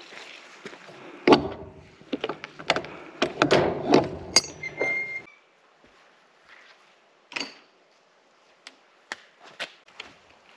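Close knocking, rubbing and clatter for a few seconds as a self-filmed camera is picked up and handled. It cuts off suddenly, and then there are only sparse, light taps of footsteps and trekking-pole tips.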